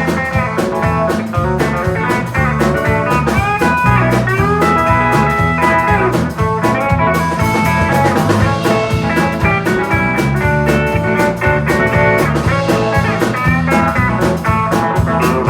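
Instrumental break of a band song: a guitar lead with bending notes over bass and a drum kit keeping a steady beat.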